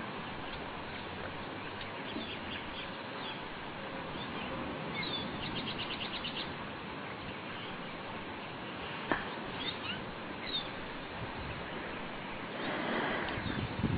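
Small birds chirping now and then over a steady background hiss, with a quick trill about six seconds in and a single sharp click about nine seconds in. Near the end a rushing noise swells up.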